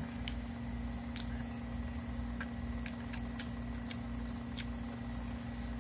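Mouth sounds of someone chewing food held in the hand: a handful of scattered small wet clicks and smacks, over a steady low hum.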